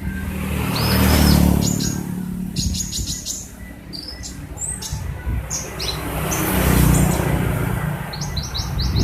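Kolibri ninja sunbird singing in quick bursts of short, high, sharp chirps and brief whistled notes. Vehicles pass in the background twice, about a second in and near seven seconds.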